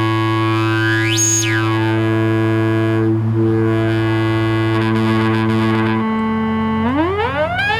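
Proton, a small single-chip DIY synthesizer, playing through a little speaker: sustained buzzy drone notes rich in overtones. About a second in, a filter sweep rises and falls. The notes change around three and again about five to six seconds in, and the pitch slides up and down near the end.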